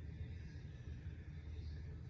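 Quiet room tone: a steady low hum with faint hiss, and no ball or cue strikes.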